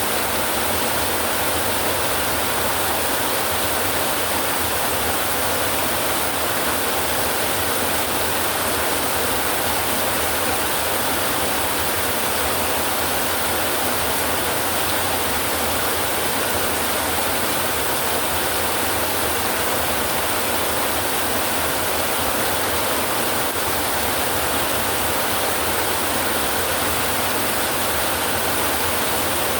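Heavy rain drumming on a tin roof as a steady, unbroken noise, with no thunder heard.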